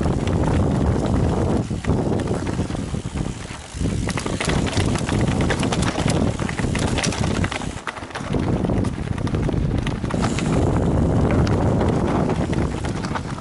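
Wind buffeting the microphone while a mountain bike rides over rough trail ground, with many sharp clicks and rattles from the bike and tyres. The wind rush eases briefly twice, about two to four seconds in and again around eight seconds.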